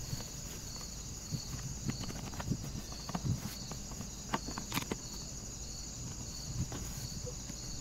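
Scattered light clicks and knocks of hands and a tool handling the plastic housing of an electric knapsack sprayer, the loudest a little before the five-second mark. Under them runs a steady background of insects chirping in a pulsing rhythm about twice a second.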